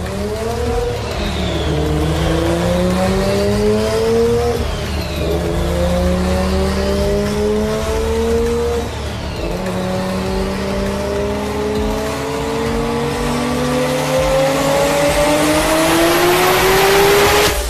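Sports car engine accelerating hard at full throttle through the gears: the pitch climbs, drops at an upshift about four and a half seconds in and again about nine seconds in, then climbs steadily for a long pull and cuts off sharply near the end, with rising tyre and wind hiss in the last seconds.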